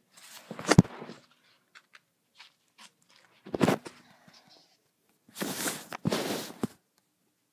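Close handling noise: three bursts of rustling and rubbing, with sharp clicks, as a plastic toy and the camera are handled against the microphone.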